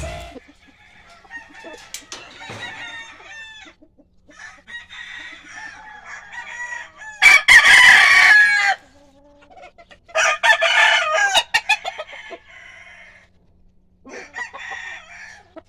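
Gamecock roosters crowing, with the two loudest crows about seven and ten seconds in, and clucking and shorter calls between them.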